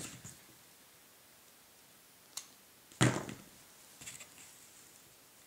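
Sparse clicks and taps of handwork at a worktable as small root twigs and tools are handled: a sharp click at the start, a lighter one a little past two seconds, a louder knock with a short ring about three seconds in, then a few faint ticks.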